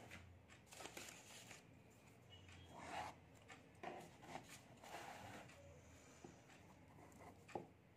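Faint rustling of a sheet of paper being turned over and pressed flat, then a pen touching down on the paper, with a single sharper tick near the end.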